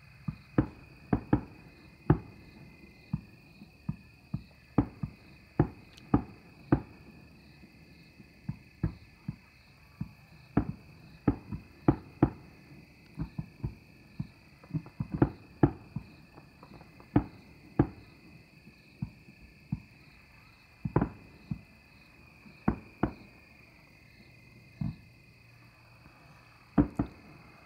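Distant fireworks going off, a string of sharp bangs at irregular intervals, often one or two a second, over crickets chirring steadily.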